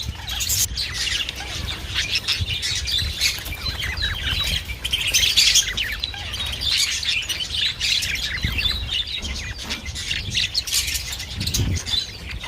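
Budgerigar chattering: a continuous run of warbles, chirps and squawks without a break, over a low rumble.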